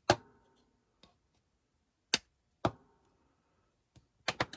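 Small hobby side cutters snipping into a plastic model car body: sharp clicks, one just after the start, two more a couple of seconds in, and a quick run of three near the end.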